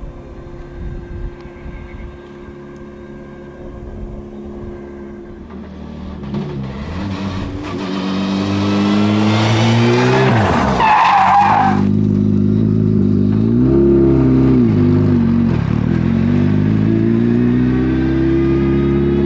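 A Škoda Fabia RS Rally2 rally car's turbocharged four-cylinder engine approaches hard, the note climbing and stepping through gear changes as it grows louder. About eleven seconds in it passes close with a short tyre squeal and a drop in pitch, then accelerates away through the gears.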